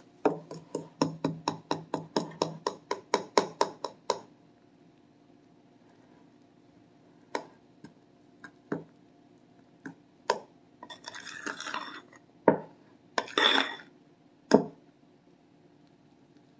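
Metal fork clinking rapidly against a glass mixing bowl, about five taps a second for the first four seconds, as flour is stirred into wet cake batter. After that come scattered single clinks and two short scraping strokes.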